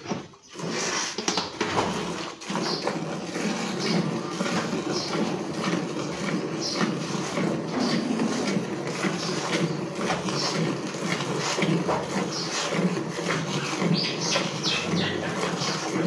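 A cow being hand-milked into a metal pail: repeated short squirts of milk into the pail, over a steady low background hum.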